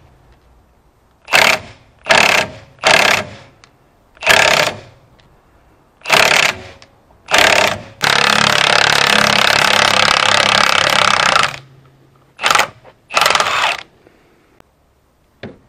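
Cordless impact wrench with a swivel socket hammering on a bolt under a Johnson 40 hp outboard's lower unit, worked back and forth on the stubborn bolt. It runs in about eight short bursts, with one long run of about three and a half seconds a little past the middle.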